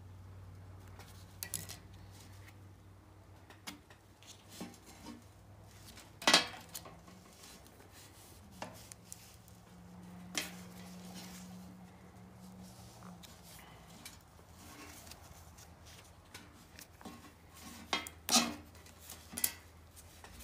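Small hand tools clicking and clinking against a metal table while insulation is trimmed from power-cord wires, in scattered sharp ticks with the loudest about six seconds in and again near the end, over a low steady hum.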